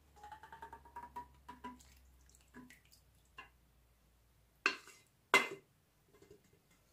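Thick minced-meat sauce being scraped out of a pot onto pasta in a baking pan: a run of quick wet squelches with a faint rising squeak in the first couple of seconds, then two sharp knocks of the utensil against the pot about half a second apart.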